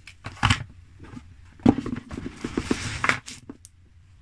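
Hands handling a phone's retail box and its packaging: a few light knocks and taps, with a rustle of packaging between about two and three seconds in.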